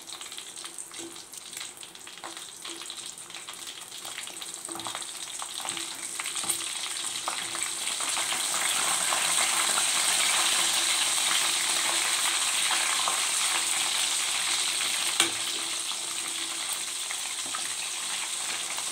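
Masala-coated fish slices frying in hot oil, a steady sizzle that grows louder from about six seconds in as the pieces are turned with a metal spatula. One sharp metal clink comes about fifteen seconds in.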